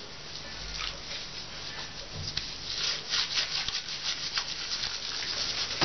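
A hand scrubbing a wet cat's soaked fur: repeated wet rubbing strokes, denser and louder from about halfway through.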